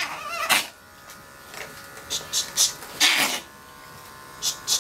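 Andis electric dog clipper running with a steady buzz as it trims the hair on a dog's face. There is a short wavering whine at the start and a louder noisy burst about three seconds in.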